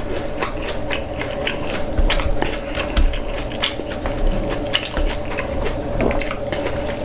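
Close-up chewing of crunchy hard-shell tacos: a string of sharp, irregular crunches over a steady low hum.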